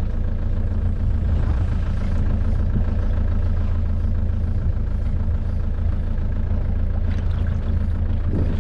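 A motorboat's engine (Rhea 750 Timonier) running steadily, a low even hum with no change in pitch.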